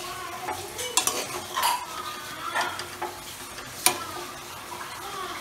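Metal ladle stirring and scraping mushrooms and masala in a pressure cooker pan over a steady sizzle of frying, with a few sharp clinks of the ladle against the pot.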